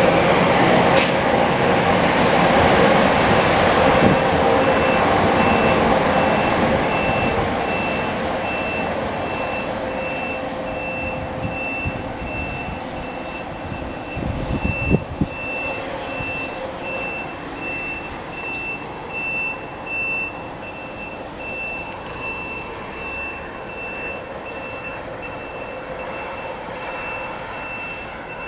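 NJ Transit multilevel commuter train with its ALP-45A locomotive pulling away along the track, its rumble fading steadily as it leaves. From a few seconds in, a thin, steady high-pitched beeping tone sounds on behind it, with a few low thumps about halfway through.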